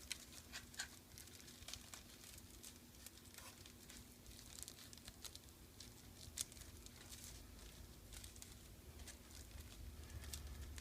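Faint, scattered crinkling and light ticks of thin plastic laminating film being handled.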